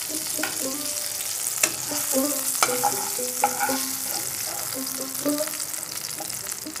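Hot oil sizzling steadily in a frying pan as fried rui fish pieces are lifted out with a metal spatula, which clicks and scrapes against the pan a few times.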